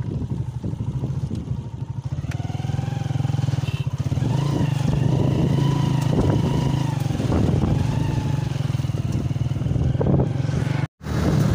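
Motorcycle engine running steadily as it is ridden over a sandy track, with a wavering higher tone over it from about two seconds in. The sound cuts out completely for a moment near the end.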